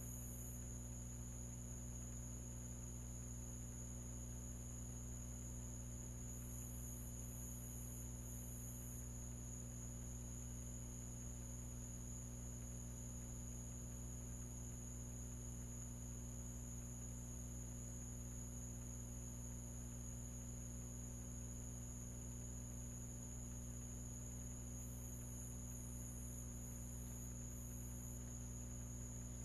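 Steady low electrical hum with a constant high-pitched whine above it. A very high, thin hiss swells a little twice along the way.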